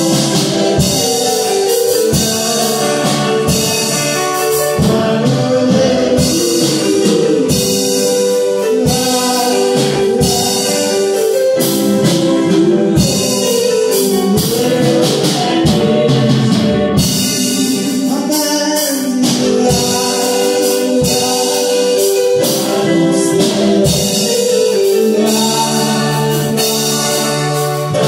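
Gospel worship song: singing over held instrumental chords and a steady percussion beat.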